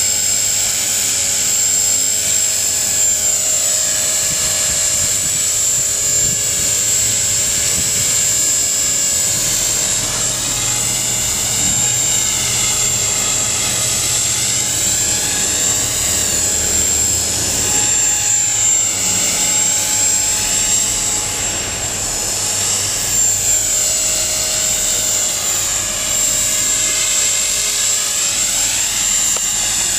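HK 450 T-Rex clone electric RC helicopter in flight: a loud, steady high-pitched whine from the motor, gears and spinning rotor. Its pitch swings up and down in waves every few seconds as it flies about.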